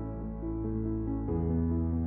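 Background music: soft new-age instrumental with sustained piano or keyboard notes over a held bass, the chord changing about a second and a half in.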